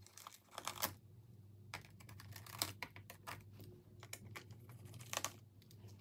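Scattered small clicks and taps of a screwdriver and fingers on the metal and plastic of an open laptop's hard-drive bay as the drive's screws are undone.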